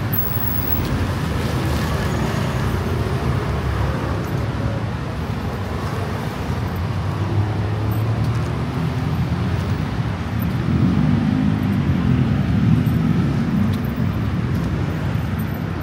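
Steady city road traffic heard from the pavement: a continuous low rumble of passing cars and engines. It swells louder for a couple of seconds about two-thirds of the way through.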